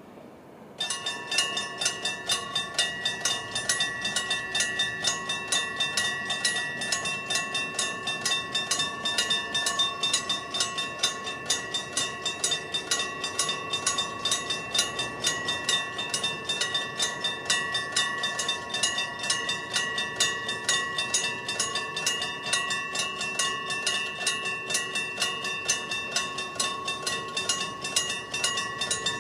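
Japanese railway level crossing warning bells: the electric bells on both sides start ringing about a second in and keep striking rapidly and evenly, signalling that a train is approaching and the crossing is closing.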